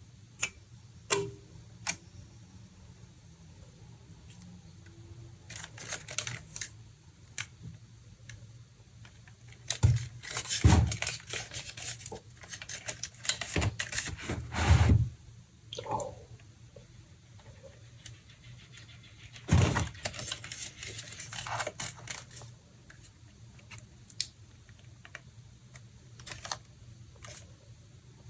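Handling noises from unboxing a graphics card: sharp clicks and taps with bursts of packaging rustling and crinkling, loudest in a stretch from about ten to fifteen seconds in.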